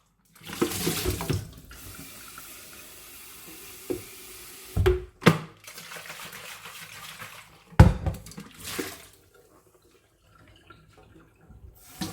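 Tap water running into a hot-water pot at a sink as its inside is rinsed of vinegar, with several dull knocks along the way. The water stops about three-quarters of the way through.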